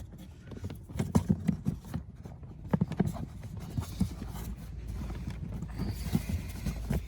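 Plastic push-in panel clips being pressed into an under-dash plastic trim panel: irregular light clicks and knocks of plastic on plastic.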